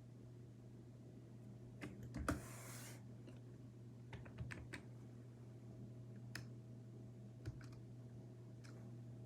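Scattered faint clicks of a computer keyboard over a steady low hum, with a short rushing noise about two seconds in.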